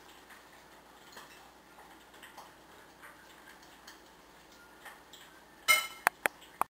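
Faint room tone with scattered soft ticks, then near the end a loud ringing clink of china followed by three sharp clicks, after which the sound cuts off.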